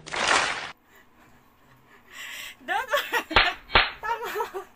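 A young woman laughing hard in bursts, with two sharp slaps in the middle of the laughter. A short burst of noise, from an edited clip, cuts off under a second in.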